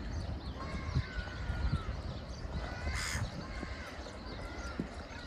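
Wild birds calling around a pond: short, thin whistled calls repeating throughout, and one harsh call about three seconds in. A low rumble runs underneath.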